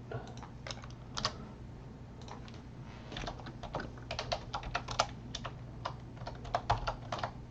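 Typing on a computer keyboard: irregular runs of quick key clicks, entering names into a list, over a faint steady hum.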